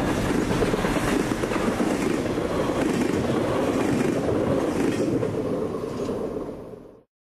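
Freight train of container well cars passing at speed, a steady rush of steel wheels on rail. The noise dies away fast near the end as the last car goes by, then cuts off.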